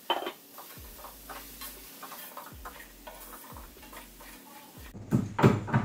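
Wooden spatula stirring shredded cabbage frying in a metal kadai, in short scraping strokes with a light sizzle, after a sharp knock at the start.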